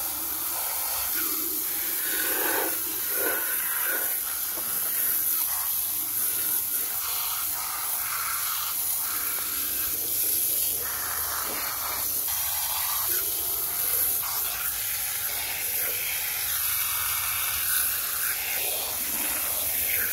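A fine jet of water spraying steadily onto mud-covered plastic toy crocodiles and artificial turf, washing the mud off. A continuous hiss, with the splash changing as the jet moves over the toys.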